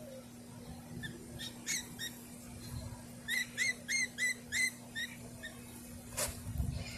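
Baby birds cheeping: short, high, hooked chirps, scattered at first and then a quick run of about five near the middle, roughly three a second. A sharp click comes near the end, over a steady low hum.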